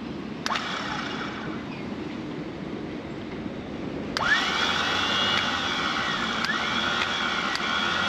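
Electric anchor windlass motor on a test hookup: a single click about half a second in, then about four seconds in the motor starts with a rising whine and keeps running steadily.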